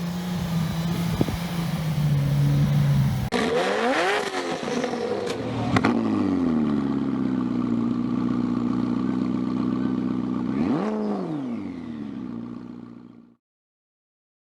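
Off-road SUV engine revving hard, its pitch rising and falling several times as it drives through sand, after a steadier engine drone with rushing noise; the sound fades out near the end.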